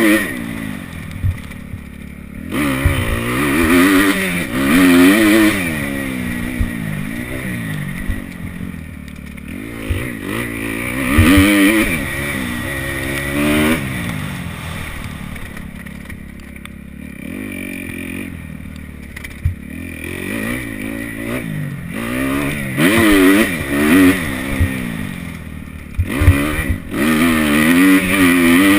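Kawasaki KX250F four-stroke single-cylinder motocross bike being ridden hard, the engine revving up and backing off again and again as the rider accelerates and shifts, with a quieter stretch at lower revs partway through.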